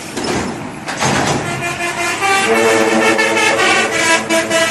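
Bus 'telolet' horn: a multi-tone musical horn sounding several notes together and stepping through a tune, starting about a second in over vehicle noise.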